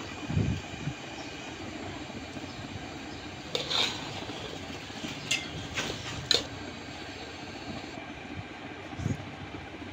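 A metal spoon clinking sharply against a metal cooking pot four or five times in the middle, over a steady background hiss, with a couple of dull knocks near the start and the end.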